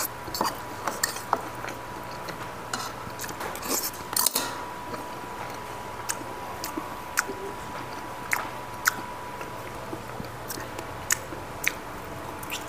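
Close-up eating sounds: a metal spoon clinking and scraping against a porcelain bowl, with chewing and wet mouth clicks, in many short, irregular clicks. A faint steady high tone runs underneath.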